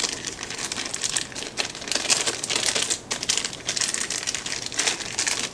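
Clear plastic bag crinkling and crackling as a camera strap is unwrapped from it by hand: a steady run of fine crackles and clicks.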